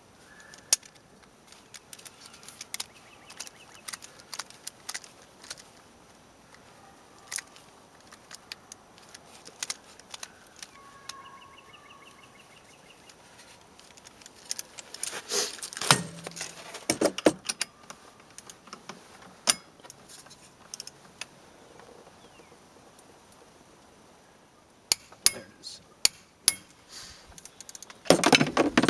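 Scattered metallic clicks and clinks of a torque wrench and socket tightening a snowmobile's primary clutch bolt to 70 foot-pounds, with a louder flurry of metal clatter near the end.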